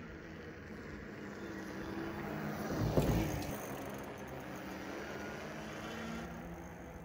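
A motor vehicle passing by, loudest about three seconds in and then fading, over a steady low hum.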